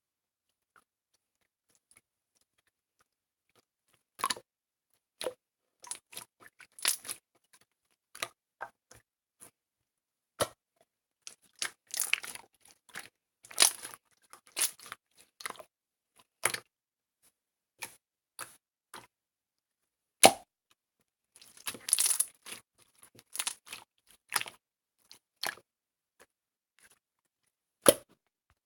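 Irregular short, crisp clicks and crunches separated by silence, with denser clusters of them now and then.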